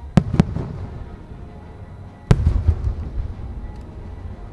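Aerial firework shells bursting: two sharp bangs in quick succession just after the start, then a louder boom a little past two seconds followed by a low rolling rumble.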